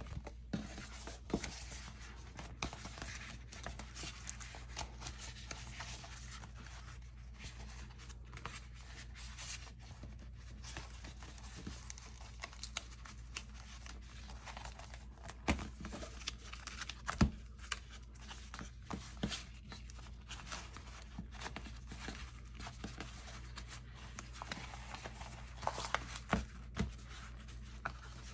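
Soft plastic crinkling and rustling as a clear vinyl planner cover is handled and a fabric A6 planner cover is worked into it, with scattered small clicks and a few sharper taps.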